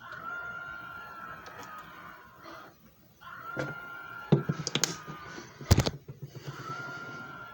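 JFJ Easy Pro disc repair machine's motor running with a steady high whine that fades out and starts again, three times. Sharp clicks and knocks come in the middle, the loudest about four and a half and five and a half seconds in.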